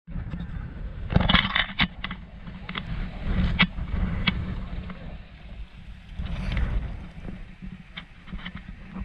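Wind buffeting the microphone, a low rumble that rises and falls in gusts, with a few sharp clicks and rustles, the loudest cluster about a second in.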